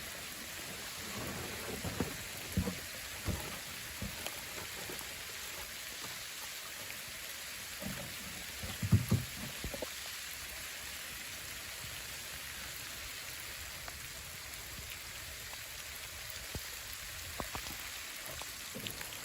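Steady hiss of rain and sleet falling, with a few short dull thumps scattered through it, the loudest about nine seconds in.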